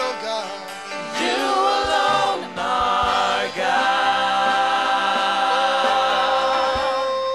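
Gospel worship singing: voices singing together over a steady low musical backing, holding long notes, with one note held through the second half.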